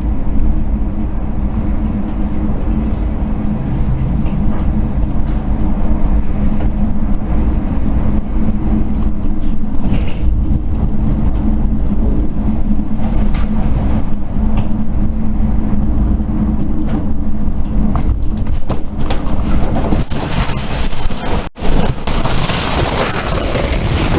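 Tornado striking a house, heard from inside: a loud, continuous low roar like a freight train, with scattered knocks of debris hitting the house. About twenty seconds in it turns harsher and hissier, with a brief dropout just after.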